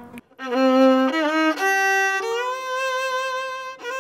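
Background music: a bowed string instrument plays a slow melody of long held notes joined by slides in pitch. It begins about half a second in, after a brief hush.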